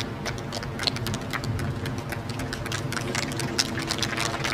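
Outdoor background noise on a golf-course television broadcast: a steady low rumble with scattered clicks.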